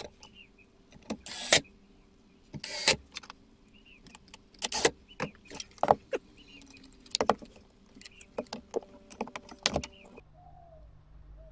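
Handling noises at a small subwoofer box: a series of irregular knocks, clicks and rustles as the box is closed up and a phone is set on top, over a faint steady hum. The knocking stops near the end.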